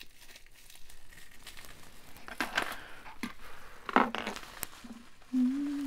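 Wrapping crinkling and rustling while jewelry is handled, with a few sharp clicks. Near the end a woman hums one short steady note.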